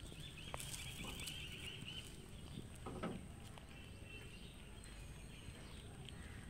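Cats chewing rice and fish off the ground, with a few small clicks. A bird twitters rapidly behind them for the first two seconds and again briefly about three seconds in.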